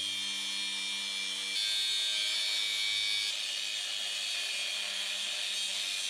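A power tool running steadily, its sound shifting slightly about a second and a half in and again a little past three seconds.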